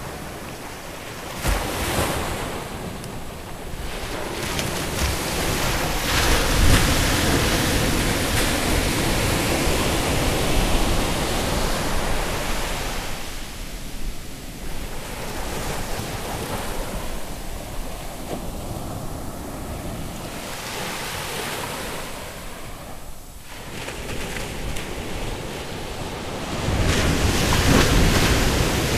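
Ocean surf breaking and washing up the beach, swelling and fading in long surges, with wind on the microphone.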